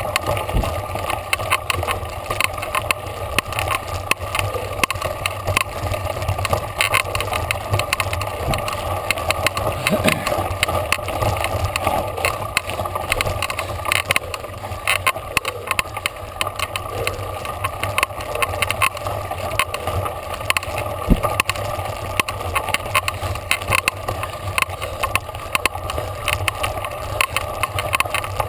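Mountain bike riding fast over a loose gravel and dirt trail: a steady rumble and crunch of the tyres with constant irregular rattling and knocking from the bike over the rough surface.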